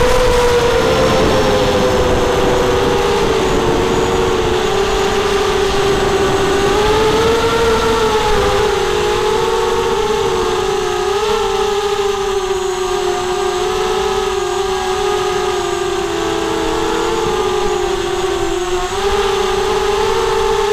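Brushless motors and propellers of a 250-size FPV racing quadcopter whining steadily as it flies, heard from the onboard camera; the pitch wavers up and down with throttle. Wind rushes on the microphone, stronger in the first half.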